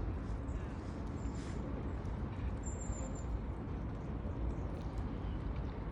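Steady outdoor background rumble, strongest in the low end, with a brief thin high-pitched tone about three seconds in.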